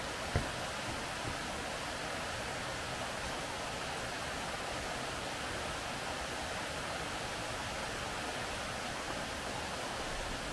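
Forest stream flowing, a steady unbroken rush of water, with a single sharp knock about half a second in.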